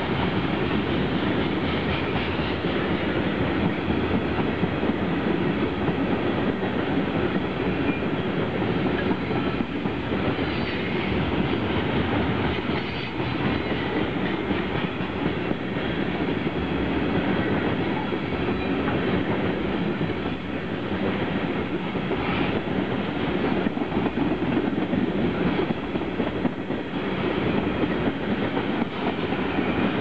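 Freight train of tank cars and covered hopper cars rolling past, their steel wheels running steadily on the rails.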